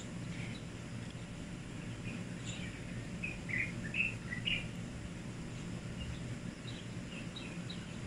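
Small birds chirping in short, quick high notes, mostly from about two to four and a half seconds in, over a steady low background hum.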